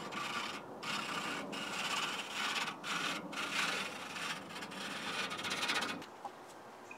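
Flat file in a saw jointer rasping along the tops of a hand rip saw's teeth, stroke after stroke with short breaks, jointing the teeth level; the filing stops about six seconds in.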